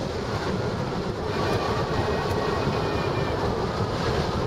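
Steady rushing wind buffeting the microphone of a camera mounted on a hang glider in flight, with a faint high whistle in the middle for a couple of seconds.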